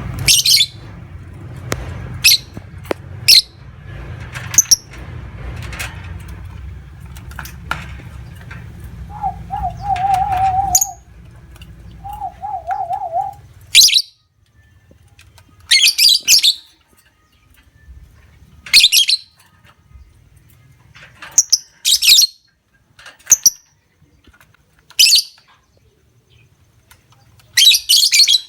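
Lovebirds giving loud, shrill, chattering calls in short bursts, one every second or two, over a low steady hum that stops about halfway through.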